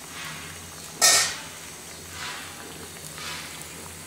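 Spatula stirring a simmering fish curry in a metal pot: soft swishes about once a second, with one loud sudden scrape against the pot about a second in.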